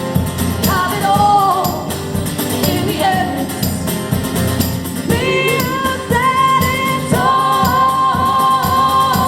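Live band music with singing over a rhythmic accompaniment. About halfway through, the voices settle into long held notes in harmony.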